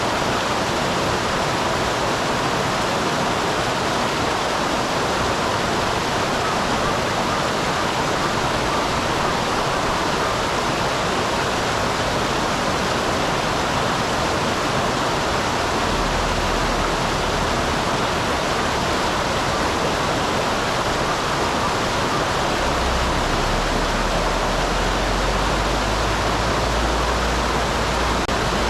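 Water of a mountain stream pouring over a small waterfall, a steady rushing. A low rumble joins in underneath about halfway through.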